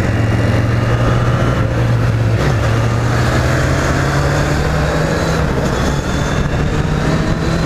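Kawasaki Z800's inline-four engine on its stock exhaust, running steadily while riding, with a brief wobble in pitch about two and a half seconds in.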